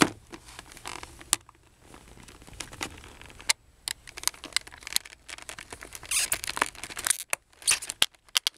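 Utility knife blade cutting and scraping through a hard clear plastic clamshell package: sharp clicks and plastic crackles, with bursts of scratchy cutting about six and seven and a half seconds in.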